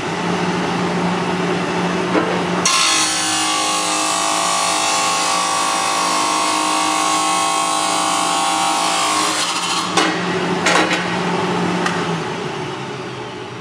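Everett 16-MIT 10 hp abrasive cut-off saw running with its dust collector. About two and a half seconds in, the abrasive wheel bites into metal bar stock, a harsh grinding hiss with ringing tones, and cuts through it in about seven seconds. A few knocks follow as the head is raised, then the motor winds down near the end.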